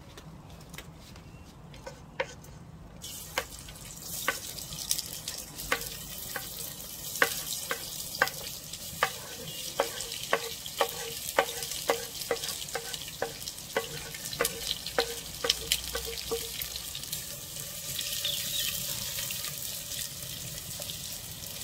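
Sliced onions sizzling as they go into a hot aluminium pot over a wood fire. A run of sharp taps, about two a second, each leaves a short ring on the pot. A louder burst of sizzling comes near the end as the onions are stirred with a wooden spoon.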